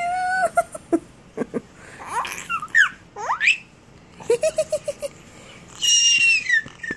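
Baby vocalising and laughing while being tickled: a held coo, then sharp rising squeals, a quick run of short giggles, and a loud high squeal that falls in pitch near the end.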